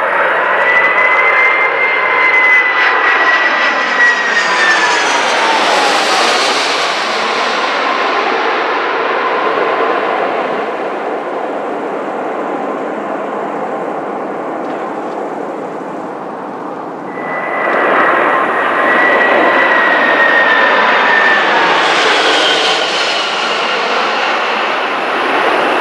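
Twin-engine jet airliners passing low overhead on final approach: dense engine noise with a whining tone that drops in pitch as each one goes by. The first passes about five seconds in; the sound jumps up suddenly about seventeen seconds in, and a second jet passes with the same falling whine near twenty-one seconds.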